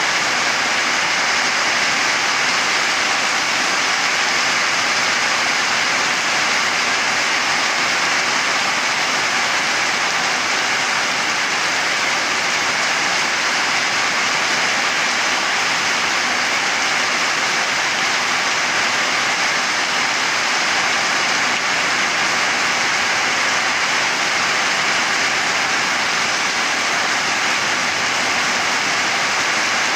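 Heavy rainstorm pouring down on trees and roofs: a steady, dense hiss that does not let up.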